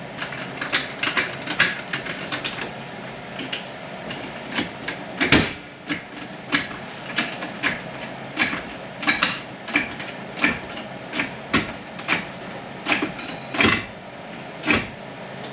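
Repeated sharp metal-on-metal hammer strikes, irregular at roughly two a second, with a short ring after each and one heavier blow about five seconds in, on a front wheel hub assembly that is seized in place with rust.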